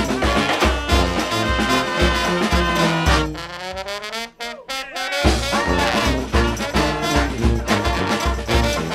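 Brass band music with a swing feel over a steady low beat. About three seconds in, the beat drops out for roughly two seconds while notes slide upward, then the full band comes back in.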